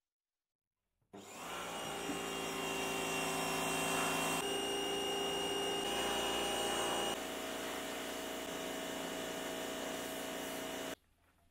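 Electric pressure washer running steadily while its water jet sprays down a bare car chassis. Its tone shifts abruptly a couple of times, and it cuts off suddenly near the end.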